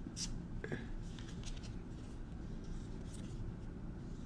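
Trading cards being handled and slid over one another by hand, a series of soft scratchy rustles and light flicks, over a steady low room hum.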